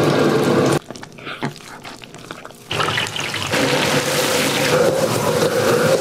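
Beaten egg sizzling in hot oil in a wok, cut off abruptly under a second in; after a quieter stretch of about two seconds, a loud, steady hiss and bubbling of battered pieces deep-frying in oil.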